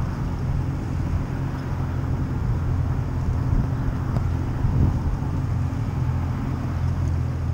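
Yamaha 190 FSH boat's engine idling with a steady low hum while the boat holds position in the current.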